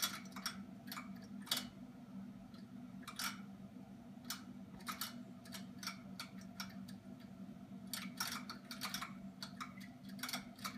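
Irregular clicking, one to a few clicks a second, from buoyant beads striking the propeller of a running EcoTech Marine VorTech MP40 propeller pump in an aquarium, over a low steady hum.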